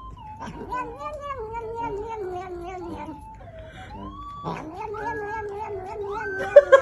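A cat yowling in long, drawn-out, wavering cries. One runs about three seconds, then after a short break a second cry of about two seconds follows. A few short, louder sounds come near the end.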